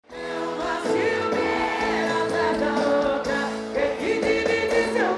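Live concert music from a stage sound system: a band playing with a lead singer holding long, gliding notes.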